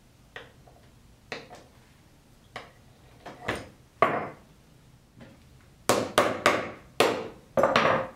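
Knocks and taps of wooden knife-handle scales, a metal tool and the knife being picked up and set down on a wooden workbench while the handle is fitted. The knocks are sparse at first, with a sharp one about four seconds in, then a quick run of loud knocks near the end.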